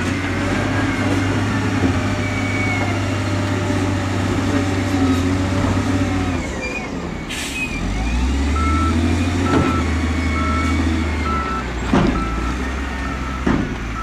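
Diesel engines of heavy earthmoving machines running steadily. The engine note drops for a moment a little after halfway and then picks up again, with a short air hiss in between. A back-up alarm then beeps about twice a second, and two sharp knocks come near the end.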